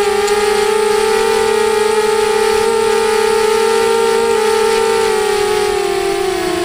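FPV mini quadcopter's motors and propellers whining at a steady pitch, heard close up from the onboard camera, with the pitch sagging slightly near the end.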